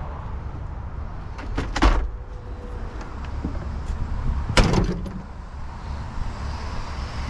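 Pickup truck door handled: a few knocks and clicks about a second and a half in, then the door slammed shut with one heavy thud about four and a half seconds in, over a steady low rumble.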